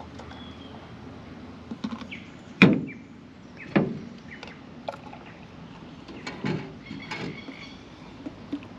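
Coffee gear being handled on a vehicle's tailgate: a series of separate knocks and clinks as cups and a coffee maker are picked up, set down and poured from. The loudest knock comes about two and a half seconds in.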